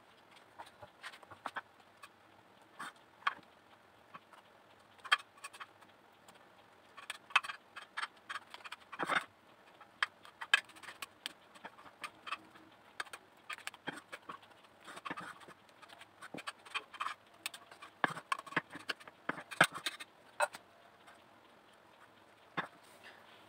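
Spatula spreading whipped cream in a glass baking dish, with irregular light clicks and taps as it touches the glass.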